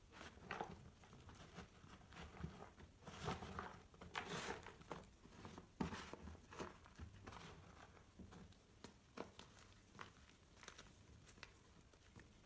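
Hands squeezing and crumbling pressed pink gym chalk: irregular crunches and crumbles, busiest in the first half and sparser toward the end.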